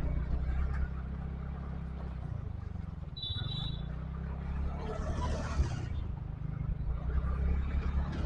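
A vehicle engine running steadily during a ride, its revs dropping briefly about three seconds in, with a short high beep just after and a passing rush of noise around the middle.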